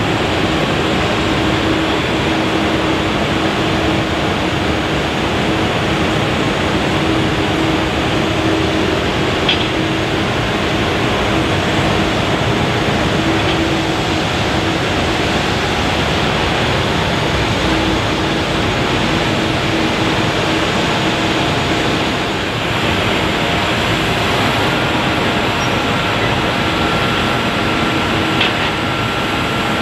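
Jet airliner engines running steadily at low power: an even rushing noise with a low hum, joined about five seconds before the end by a higher whine that rises and then holds.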